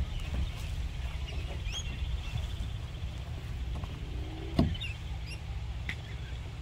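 Steady low wind rumble on the microphone, with scattered short bird chirps and a single sharp knock about four and a half seconds in.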